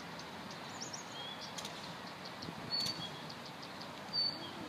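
Small birds chirping in short, high notes, the loudest twice in the second half, over steady outdoor background noise with a few faint sharp clicks.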